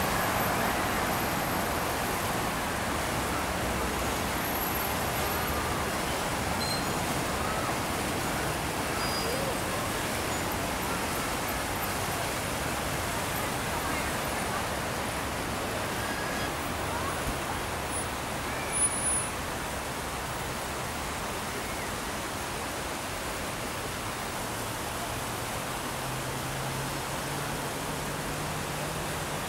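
Steady hiss of road traffic from a busy multi-lane road, with faint voices of passers-by early on and a short louder noise about two-thirds of the way through.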